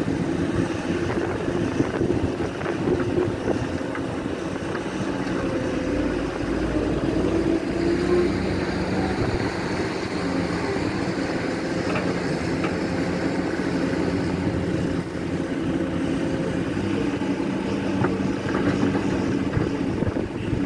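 Caterpillar 336 hydraulic excavator's diesel engine running steadily under load as it digs and loads a dump truck, with small shifts in pitch and a few faint clicks.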